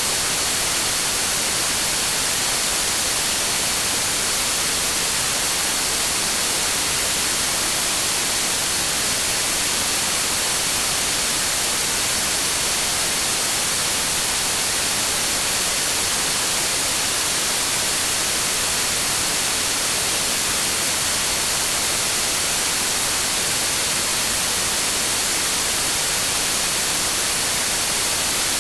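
Continuous synthetic 'green noise' for sleep and tinnitus masking: an even, unchanging hiss that is brightest in the high end. A faint steady high tone runs through it.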